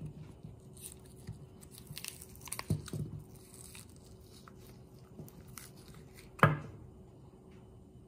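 Frozen ice cubes being pressed out of a soft silicone honeycomb ice tray: scattered crackles and creaks as the ice breaks free of the cells, with a sharp crack about six and a half seconds in as a cube pops loose.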